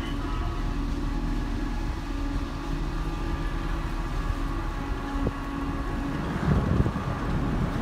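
Machinery of the large car ferry Lavender running at its berth: a steady low drone with a constant hum, the rumble swelling briefly about six and a half seconds in.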